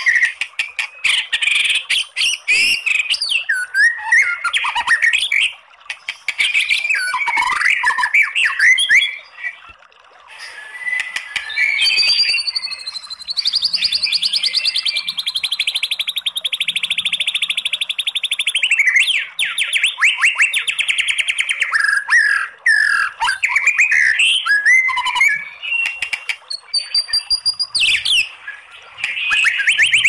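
White-rumped shama (murai batu) singing a long, varied song. Rapid clicking rattles and quick whistled phrases come first, then a long fast trill about halfway through, then more varied phrases and a fast pulsed run near the end.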